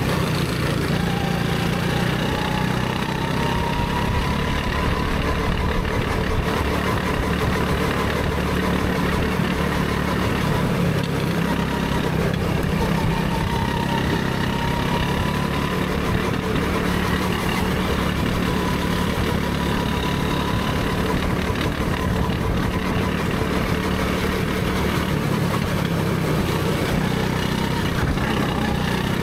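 Go-kart engine running from the driver's seat while lapping, its note rising and falling repeatedly as the kart accelerates out of corners and lifts for the next ones.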